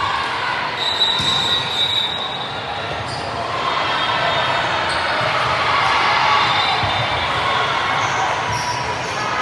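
Gym sounds of a junior volleyball match: a ball being hit and bounced on the court, sneakers squeaking, and players and spectators talking over one another.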